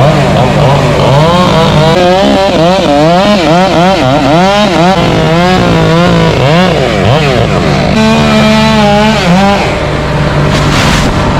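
A stump grinder's engine running hard and steadily, with a higher whine above it that rises and falls rapidly.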